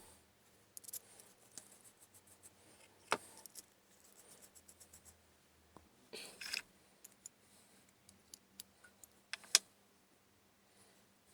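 Light metallic clicks and taps from small steel and bronze parts being handled, with a quick run of light ticks about four seconds in, a short scrape about six seconds in, and a sharper click near the end.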